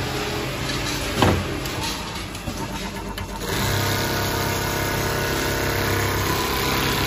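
Automatic sewing machine running with a steady mechanical hum, which settles into a steadier, louder running sound about three and a half seconds in. A single knock comes just after one second.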